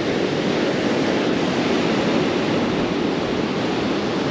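Steady, loud rushing noise of sea surf and wind, even and unbroken, with no individual wave breaks standing out.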